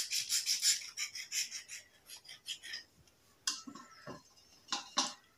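Wet scrubbing of a black bar with a sponge scrubber in a steel plate of water: rapid rhythmic strokes, about five a second, that thin out and fade after about a second. Near the end come a few sharp clicks, as the bar or scrubber knocks on the steel plate.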